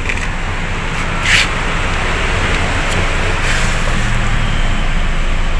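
Steady hum and hiss of a Honda HR-V idling while parked, heard inside the cabin, with a brief rustle about a second in.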